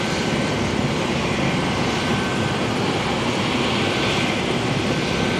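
Military helicopter turbine engines running steadily on the ground, a continuous rush of noise with a thin high whine.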